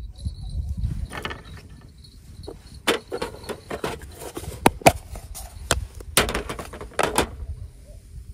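Small clicks, taps and rustles of fishing tackle being handled as a leader is clipped onto a feeder rig, with a run of sharp clicks from about three to seven seconds in.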